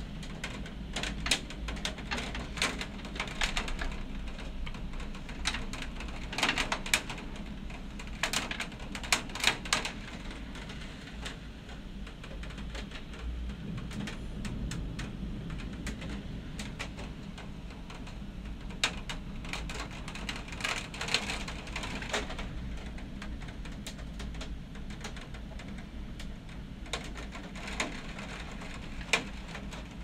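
Storm rain and hail pelting the window glass: irregular clusters of sharp ticks over a steady rushing downpour with a low wind rumble.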